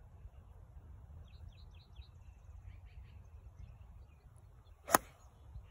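A golf club striking a ball off the fairway grass: one sharp crack near the end.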